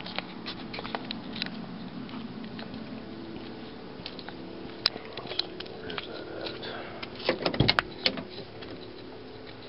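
Things being handled and moved about: scattered light clicks and knocks, with a cluster of louder knocks about seven and a half seconds in, over a steady low hum.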